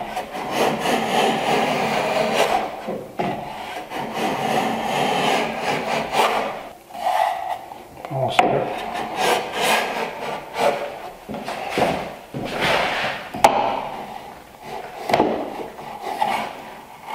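Lee Valley Veritas iron miter plane, a low-angle plane like a supersized block plane, riding on a miter jack as it shaves end grain to a 45-degree case miter: a run of planing strokes a second or two long each, with short pauses between.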